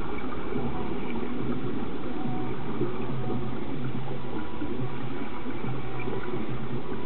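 Steady underwater bubbling and gurgling, muffled, with a faint low hum running under it.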